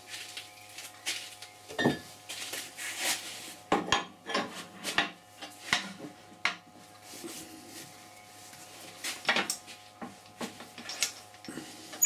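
Irregular metallic clinks and knocks, like tools and metal fittings being picked up and set down, over a faint steady hum.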